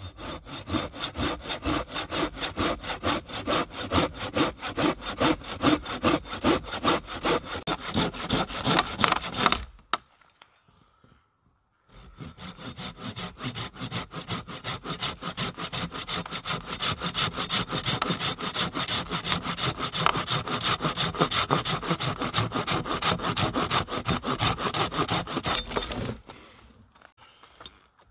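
Hand saw cutting through wood with quick, even back-and-forth strokes, in two long bouts separated by a pause of about two seconds.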